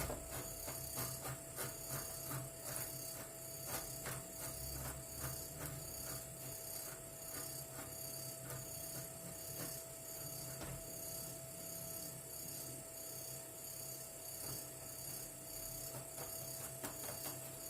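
Fresh ginger root being peeled in small, faint scraping strokes, roughly two a second at first and sparser later, over a steady hum with a faint constant tone.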